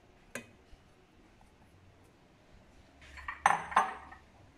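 A single tap about a third of a second in, then a short run of clinks and knocks near the end, the loudest two close together: a glass bowl being tapped and scraped with a spatula over an enamel mixing bowl to empty out the last of the flour.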